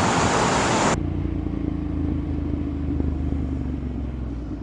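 A loud rushing noise cuts off abruptly about a second in. A motor vehicle's engine follows, running with a steady low rumble and a constant hum.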